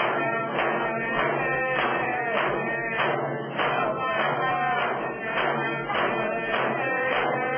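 A group of voices chanting over a steady, evenly spaced drumbeat.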